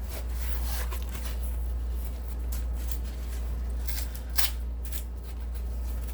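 Cardboard vinyl-record mailer being torn open by hand, its glued strip pulled off, with scraping and rustling and several sharp rips, the loudest about four seconds in. A steady low hum runs underneath.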